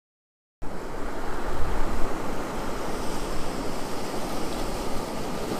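A steady rushing noise, heaviest in the low end, that cuts in abruptly out of dead silence about half a second in.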